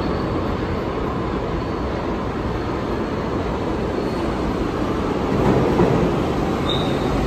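New York City subway train approaching through the station tunnel: a steady rumble of wheels on rail that grows a little louder over the last couple of seconds, with a brief high squeak near the end.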